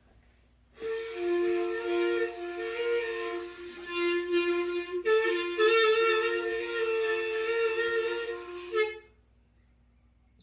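An instrument holds sustained two-note chords, with a brief break about five seconds in. It stops sharply about nine seconds in.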